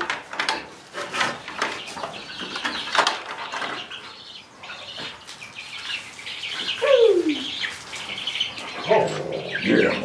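Young chicks peeping in a brooder, many short high chirps throughout, mixed with clicks and knocks of hardware being handled on a wooden door. One falling squeal about seven seconds in.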